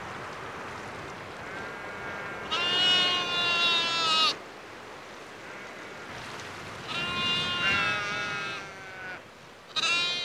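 Sheep bleating: two long calls a few seconds apart, the second with another sheep calling over it.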